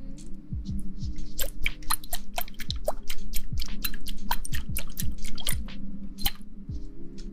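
Close-miked ASMR trigger sounds: a dense run of sharp crackling clicks and wet squishes. Underneath are a steady low hum and soft low thumps.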